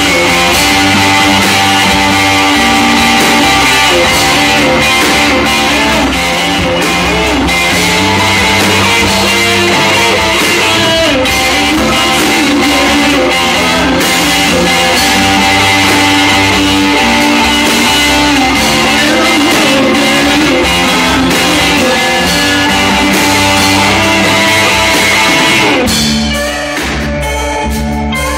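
Live rock band playing loud: electric guitars, bass guitar and drum kit. About 26 seconds in, the playing drops to a quieter, sparser passage.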